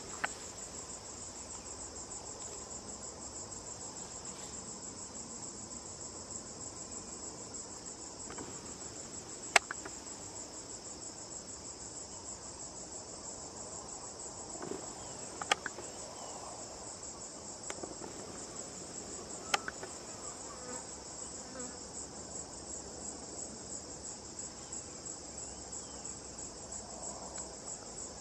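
A steady, high-pitched chorus of forest insects trilling without a break. Three sharp clicks or snaps stand out in the middle stretch, the loudest sounds present.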